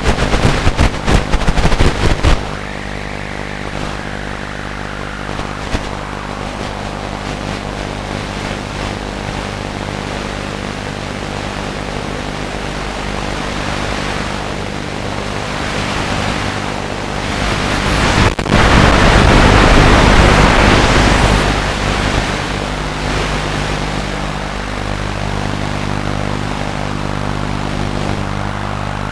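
Motor and propeller of a radio-controlled FPV model aircraft running steadily, heard through its onboard camera. Loud crackling wind buffeting on the microphone in the first two seconds, and a rush of air swells up and fades again about two-thirds of the way through.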